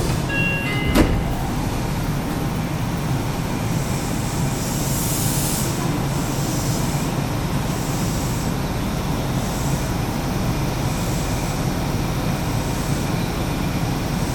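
Nagoya Municipal Subway 2000 series car: the last pitched tones of the door chime, then a knock about a second in as the doors shut. After that comes the subway train's steady running rumble, with a hiss about five seconds in.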